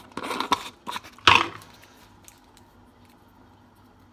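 Blue plastic screw lid being twisted onto a small glass bouillon jar, a short scratchy rasp, followed about a second and a half in by one louder clatter of the jar being handled.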